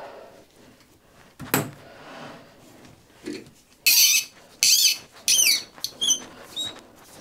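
A sharp metal click, then about four seconds in three loud squeaks that waver in pitch, followed by a couple of short chirps: a tap being turned by hand with a spanner, squeaking in a brass workpiece on a lathe.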